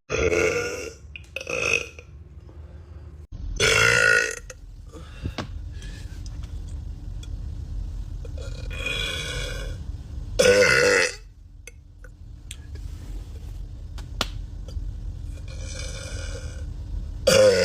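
A man burping repeatedly: about six separate burps, the loudest and longest about four and ten seconds in and one more at the end.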